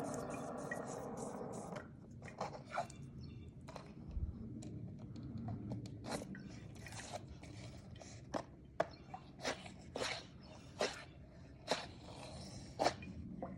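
A fidget spinner whirring for nearly two seconds and then stopping, followed by scattered sharp clicks and taps.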